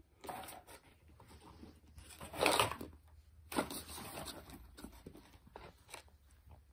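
Pomeranian chewing and crunching on a dry chew stick: a run of irregular crackling bites, the loudest crunch about two and a half seconds in.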